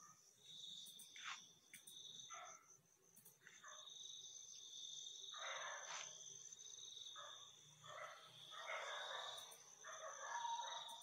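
Night insects, crickets, trilling steadily and faintly at two high pitches. Brief soft rustling noises come now and then, the longest about five seconds in and about nine seconds in.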